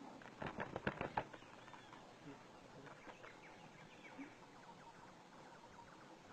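Faint, short bird chirps, with a quick run of sharp clicks or knocks about half a second to a second and a half in.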